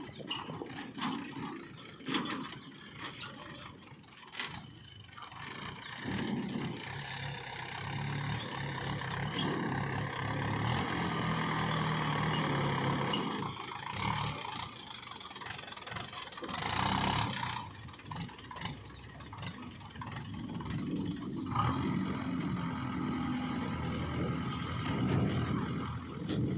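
Diesel engine of a backhoe loader and tractor at work, running and rising and falling in pitch, with scattered clanks and knocks and a brief loud rush of noise about two-thirds of the way through.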